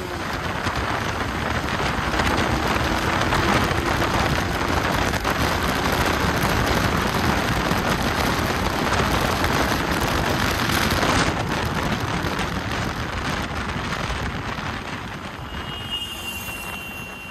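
Wind rushing over the microphone of a Yamaha R15 V4 (155 cc single) ridden at about 80 to 95 km/h, with the bike's engine under it. The noise eases after about eleven seconds as the bike slows.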